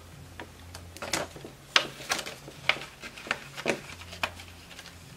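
Paper banknotes rustling and crinkling as they are handled, with crackles of clear plastic binder envelopes, in short separate bursts about every half second. A faint low hum runs underneath.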